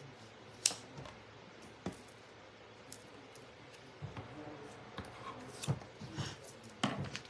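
Scissors snipping a sponge into small pieces: a few separate sharp clicks of the blades at first, then quicker snips and handling sounds from about halfway through.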